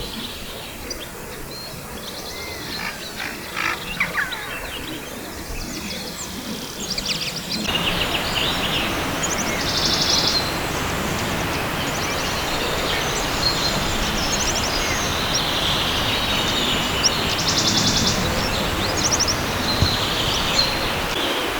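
Wild birds chirping and singing in riverside woodland. About eight seconds in, the steady rush of a river suddenly comes in and stays, with birdsong trills going on over the water.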